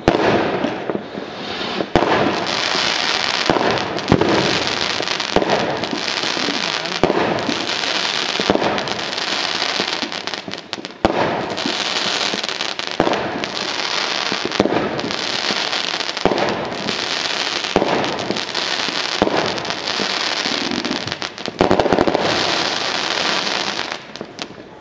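Aerial fireworks going off continuously: sharp bangs of shells bursting among repeated spells of dense crackling, about one a second. The barrage dies down just before the end.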